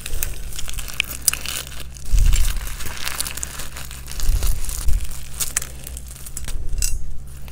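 Close-miked eating sounds: food torn by hand and chewed, with crinkling and crackling clicks throughout and a few low thumps about two seconds in and again near the middle.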